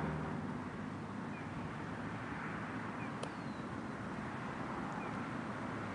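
Steady outdoor background hiss, with a faint single tick about three seconds in.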